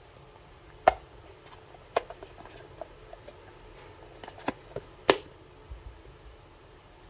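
An oracle card deck and its box being handled on a surface: a few sharp taps and knocks, the loudest about a second in and just after five seconds, with lighter ticks between.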